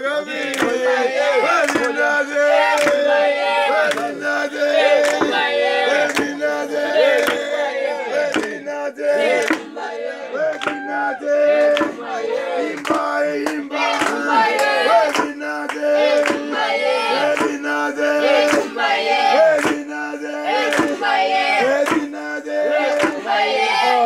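A group of men and women singing a chant together to accompany coffee pounding, with a steady percussive beat of about one stroke a second keeping time.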